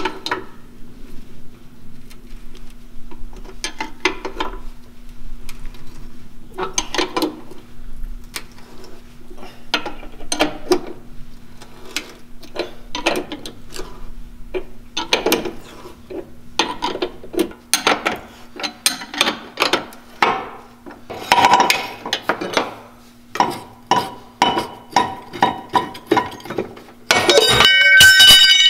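Hand wrench and socket ratchet working steel bolts on a boat's transom bracket: irregular metallic clicks and clinks, with runs of quick ratchet clicks as bolts are turned. Near the end comes a louder, ringing metal clatter.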